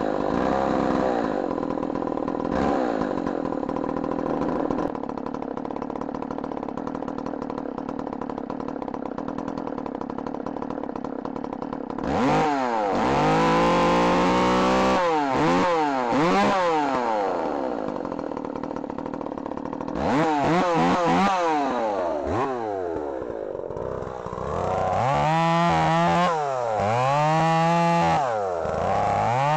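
Two-stroke engine of a Stihl MS270 chainsaw, freshly ported in the lower transfers and just re-tuned at the carburetor, idling steadily. About 12 s in and again about 20 s in it is revved up and back down, and near the end it is blipped up and down several times.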